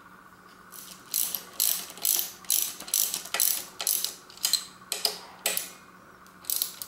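A ratcheting wrench tightening the lock nut of a bicycle's rear caliper brake, clicking about twice a second in a run of a dozen or so strokes.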